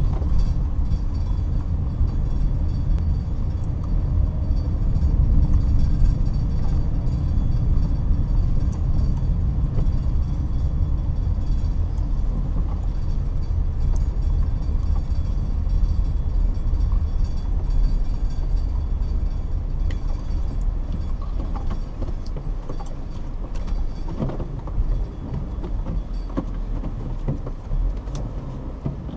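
Campfire burning, with scattered faint crackles over a loud, steady low rumble.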